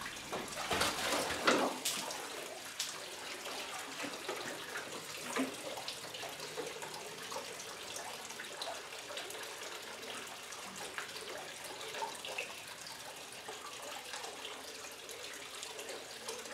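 Water running from a tap into a metal bucket standing in a water-filled stone trough: a steady splashing trickle with small drips. There is louder splashing between about half a second and two seconds in.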